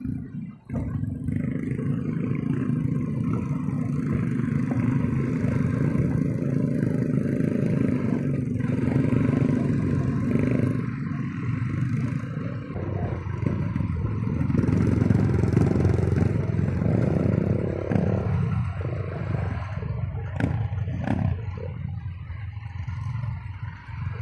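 A small single-cylinder trail motorcycle engine pulling under load, its revs rising and falling, with a few sharp knocks and clatter about three-quarters of the way through.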